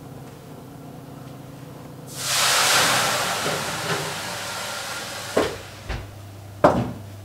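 Water poured onto the hot baking tray in the bottom of a 240 °C oven, hissing into steam: the hiss starts suddenly about two seconds in and fades over a few seconds. Two short knocks follow near the end.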